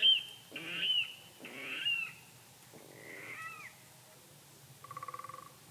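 Four short high animal calls, each dropping in pitch at its end and spaced under a second apart, the last one fainter. Near the end comes a brief buzzing rattle.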